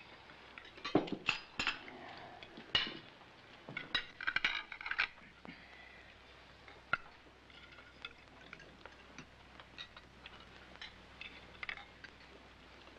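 Cutlery and dishes clinking as people eat: scattered light clinks and taps of utensils against plates and cups, busiest in the first five seconds and sparser after.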